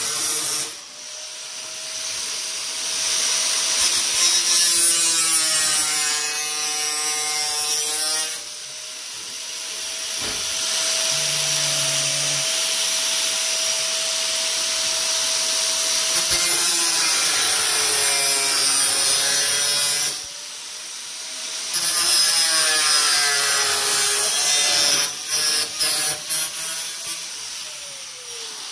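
Handheld power tool cutting corner reliefs into sheet steel in several loud bursts, its motor pitch dropping and rising under load between cuts and falling away near the end.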